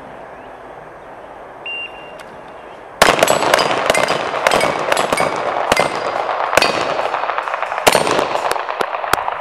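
A short shot-timer beep, then just over a second later two handguns firing fast strings at once, with steel plate targets clanging and ringing as they are hit, for about six seconds.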